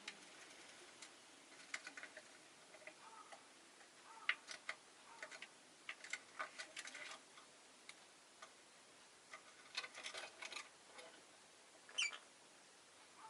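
Rosy-faced lovebird making faint, scattered clicks and scratchy ticks, with one short high chirp falling in pitch about twelve seconds in.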